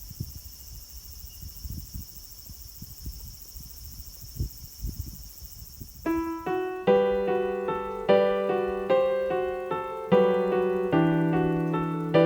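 A steady high-pitched chorus of insects with low rumbling noise; about six seconds in it cuts off and piano music begins, notes and chords struck about once a second.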